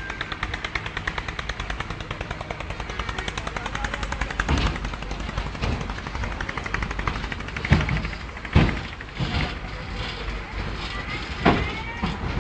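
Hydraulic excavator's diesel engine running with a rapid, even clatter, broken by several heavy knocks: one about four and a half seconds in and a cluster between eight and twelve seconds.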